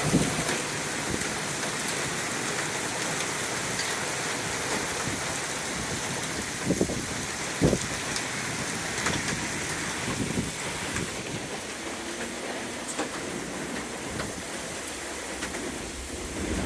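Heavy rain pouring down steadily, with a few short knocks standing out, two of them near the middle.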